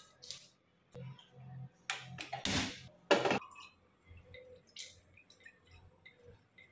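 Kitchen handling noises: a few knocks and clatters, with one sharp clack about three seconds in. Then faint dribbling as cooking oil is poured into an empty aluminium pressure cooker.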